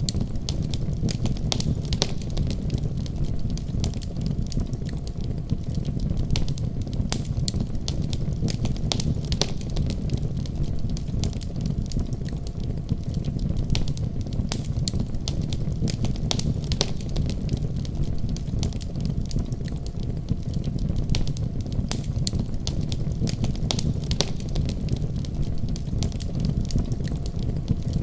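Firewood burning in a wood stove, crackling and popping with many irregular sharp snaps over a steady low rumble.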